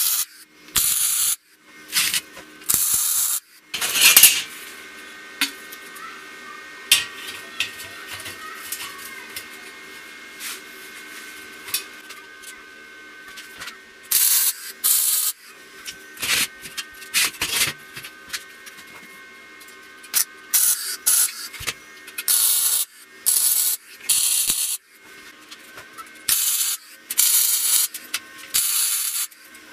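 Short rasping scrapes repeated at irregular intervals, coming faster and closer together in the second half, over a faint steady tone.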